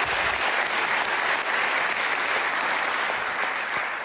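Studio audience applauding, a dense steady clapping that begins to die down near the end.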